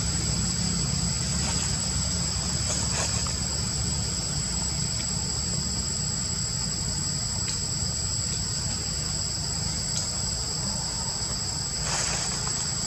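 Steady, high-pitched insect chorus droning without a break, over a steady low rumble.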